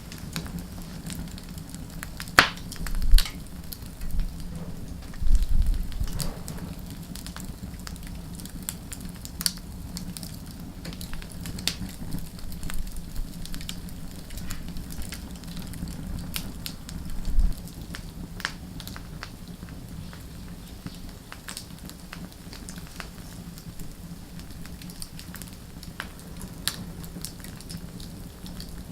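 Wood fire burning, with irregular sharp crackles and pops over a steady low hum. A few louder low thumps come through, two in the first six seconds and one a little past halfway.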